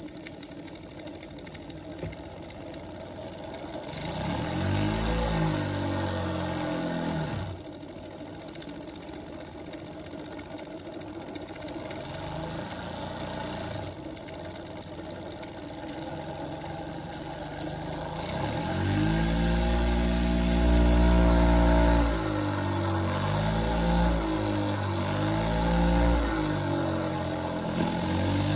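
Small model steam engine running, speeding up and slowing down as its steam supply is varied. It speeds up for a few seconds, drops back, then runs faster and louder from about two-thirds of the way in, dipping and picking up again several times.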